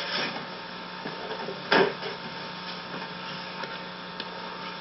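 Steady electrical mains hum under low background noise, with one short sharp knock about two seconds in.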